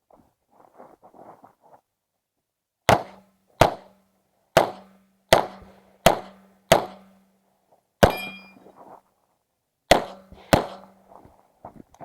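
Uzi Pro 9mm pistol fired nine times in semi-automatic. Six shots come at a steady pace, then a pause, a single shot with a brief ringing after it, another pause, and a final quick pair.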